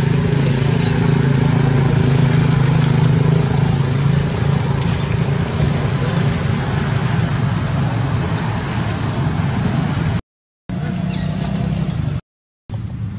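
A steady engine hum with a broad noisy hiss, cutting out briefly twice near the end.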